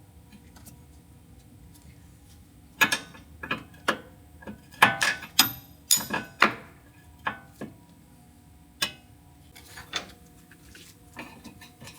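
Hand tools clinking on metal during a front toe adjustment: a string of irregular, sharp metallic clinks and taps starting about three seconds in, thickest in the middle.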